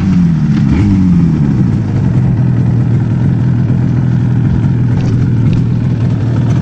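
Yamaha RD250C's air-cooled two-stroke twin, with a freshly rebuilt top end, dropping in revs over the first second or so as the bike slows, then idling steadily.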